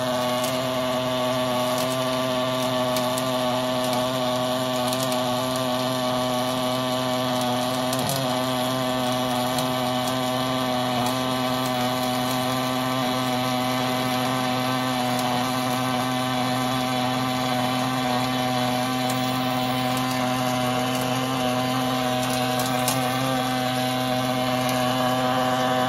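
Gas-shielded welding arc running steadily along the inside seam of a steel shell on an automatic longitudinal seam welder: a continuous buzz with a hiss.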